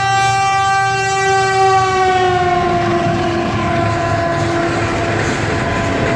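A Pakistan Railways diesel locomotive's horn sounds one long held note that drops in pitch as the locomotive passes, about two seconds in, then fades near the end. Beneath it the noise of the passenger coaches running over the rails grows.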